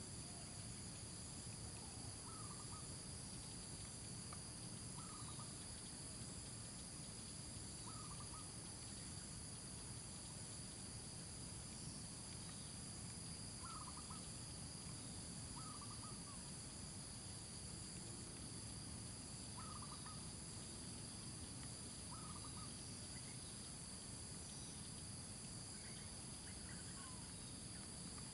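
Faint outdoor ambience: a short animal call repeated about every two to three seconds over a steady high-pitched drone, typical of insects.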